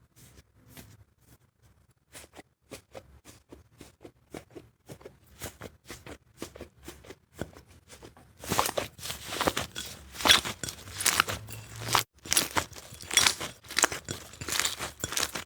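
Slime being pressed and poked by hand, giving a string of small clicking pops that turns into dense, louder crunchy crackling about eight seconds in, with a brief pause near the twelve-second mark.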